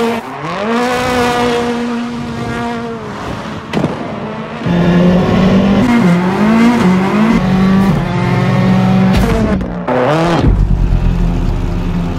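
Ford Fiesta rallycross car's turbocharged four-cylinder engine revving hard. It climbs to a held high rev near the start, falls and rises again, holds high for several seconds, then drops sharply and climbs back about ten seconds in.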